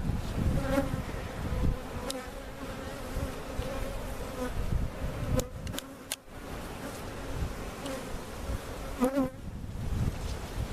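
A mass of honey bees buzzing around a hive box as a vacuumed colony is let out into it: a steady, even hum. A few sharp clicks come about halfway through.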